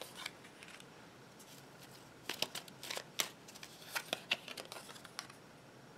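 Tarot cards being handled and laid down on a wooden table: a scattered series of short, faint clicks and taps of card on card and card on wood.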